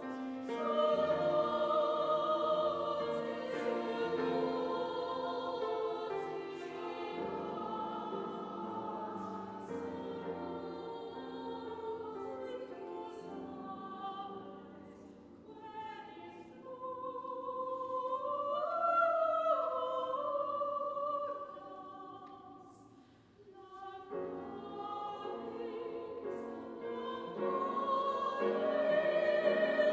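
Mixed choir singing a sacred Latin choral piece. The upper voices climb in a long rising line around the middle, the sound falls almost silent briefly about three quarters of the way through, and the choir then comes back in, growing louder toward the end.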